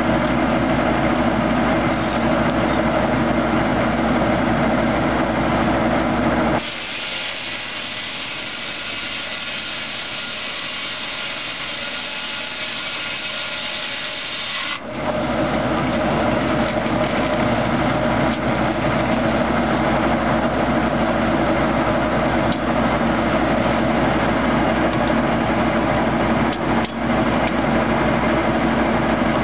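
Tractor-PTO-driven Foley Belsaw circular sawmill running, with a steady machine hum. From about seven to fifteen seconds in, the hum gives way abruptly to a higher hissing sawing sound, then comes back just as suddenly.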